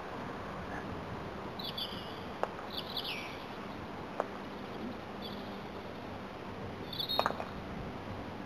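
Small birds chirping in short phrases, with a few sharp wooden knocks of croquet mallets striking balls. The loudest knock comes as a quick cluster about seven seconds in.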